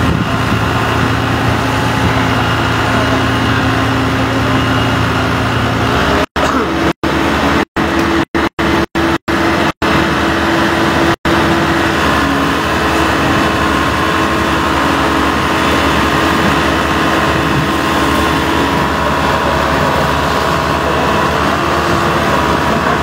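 Fire truck engine running steadily, its pitch stepping up slightly about six seconds in. The recording cuts out for split seconds about eight times between six and eleven seconds in.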